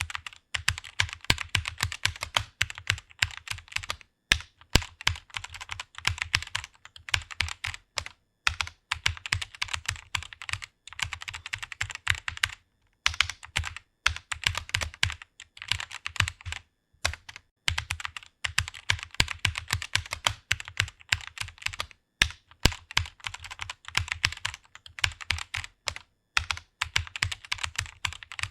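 Fast typing on a computer keyboard: quick runs of keystroke clicks, broken by short pauses every few seconds.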